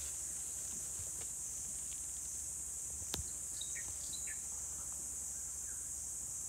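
Steady high-pitched insect drone, with one sharp click about three seconds in and a few short bird chirps just after it.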